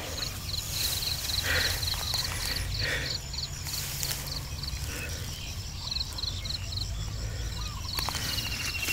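Insect chirping in fast, even pulses that come in runs with short breaks. Under it is a low steady rumble and a few soft rustles.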